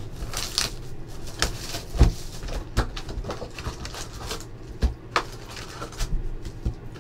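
Plastic shrink wrap crinkling as it is torn off a cardboard trading-card hobby box, then the box's flap lid being pulled open: irregular rustles with sharp clicks and snaps.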